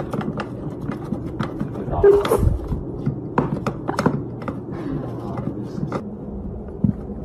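A hamster gnawing and tugging at a wooden chew stick, giving many sharp clicks and scrapes, with rustling of wood-shaving bedding. The clicks are loudest about two seconds in.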